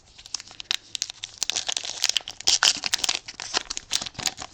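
A baseball card pack wrapper being torn open and crinkled by hand: a dense, irregular crackling.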